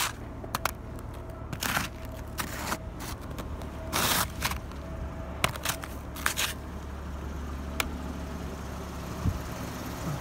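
Truck engine idling low and steady, with a few short crunching noises of snow being disturbed, the loudest about four seconds in.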